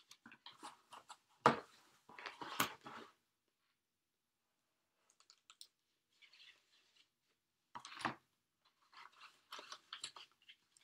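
Plastic shrink-wrap on a vinyl record sleeve crinkling and tearing as it is cut open and pulled off, in several short crackly bursts with a brief pause between them. The loudest moment is a sharp snap about a second and a half in.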